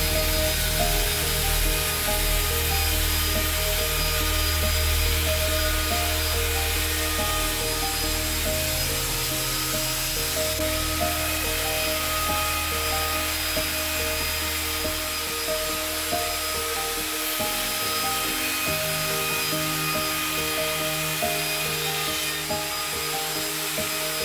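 Handheld trim router cutting along a wooden frame, a steady noise throughout, with background music playing over it.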